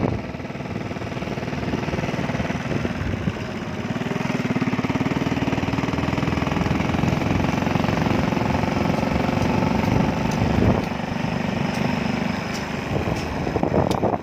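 An engine running steadily, growing a little louder about four seconds in.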